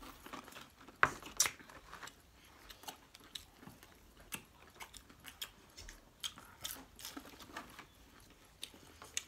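People chewing and eating chicken nuggets quickly, with irregular wet mouth smacks and small clicks, the sharpest about a second in.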